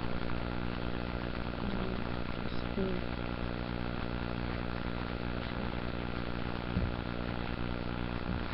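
A steady low hum made of many evenly spaced tones, running without change, with a few faint short sounds about two and three seconds in.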